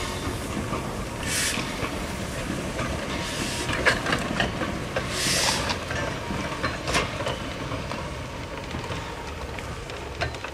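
Goods train of short four-wheeled wagons hauled slowly past by an A1X 'Terrier' steam tank engine: a steady rolling rumble with wheels knocking over rail joints, the sharpest knocks about four and seven seconds in, and a few bursts of steam hiss in the first half.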